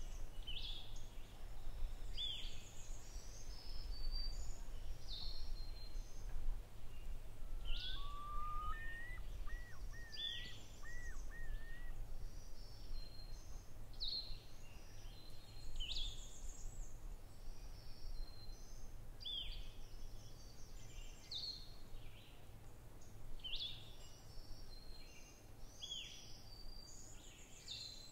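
Birdsong from several birds: many short, high chirps and quick downslurred notes repeating throughout, with a lower looping warbled phrase about eight seconds in, over a steady low rumble.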